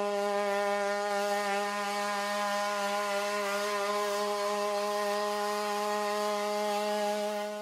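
Boston Dynamics WildCat quadruped robot's onboard combustion engine running at a steady, unchanging pitch: a loud, buzzing drone like a small power tool.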